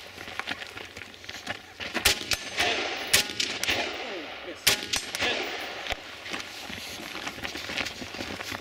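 Rifle shots from an IWI Tavor bullpup, about half a dozen fired singly over some four seconds, each trailing off in echo.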